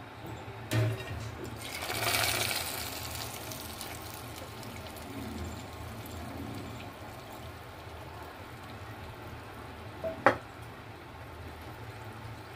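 Hot desi ghee tempering with crackled cardamom poured into a pot of sweetened milk and vermicelli, sizzling loudly for about two seconds and then fading to a low simmer-like hiss. A knock comes just before the sizzle, and a sharp metal clink comes near the end.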